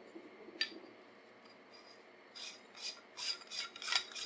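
Rifle-scope sunshade tube being screwed onto the scope's objective bell: a light click about half a second in, then, from a little past halfway, short scraping rasps of the threads turning, two or three a second.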